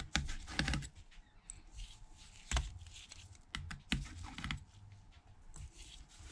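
Irregular small clicks and taps of a precision screwdriver working the tiny screws out of the metal connector cover plate inside an iPhone SE (2nd gen).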